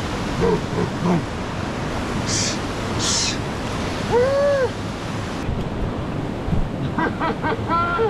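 Steady rush of a small waterfall cascading over rocks into a pool, with wind on the microphone. Two short hissing breaths about two and three seconds in, and a brief hum that rises and falls a little after four seconds.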